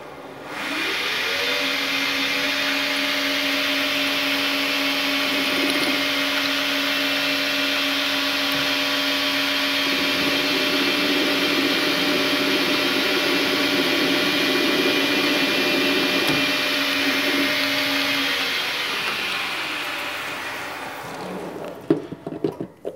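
Small benchtop metal lathe spindle spinning up, running steadily while a carbide tool turns down the end of a mild steel stud, then spinning down near the end. There is a steady motor whine with a hiss above it, rising in pitch as it starts and falling away as it stops.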